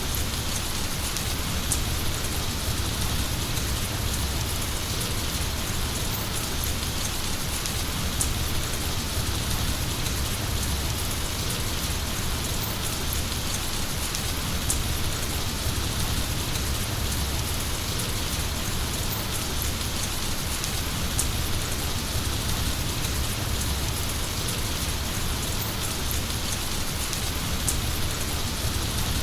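Heavy rain falling steadily: a continuous even hiss with a few sharp drop ticks now and then.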